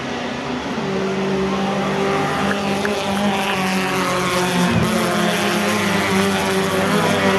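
Race car engines running on the circuit: a steady, multi-tone engine drone that grows louder about a second in and then holds.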